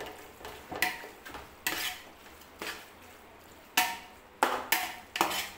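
A metal spoon stirring onions and tomatoes in a large metal pot, scraping and knocking against the pot in about seven separate strokes. Several strokes leave a short metallic ring.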